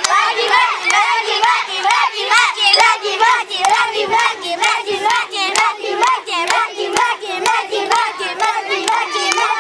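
Spectators cheering a child competitor on: many high-pitched voices shouting and yelling together, with hand clapping.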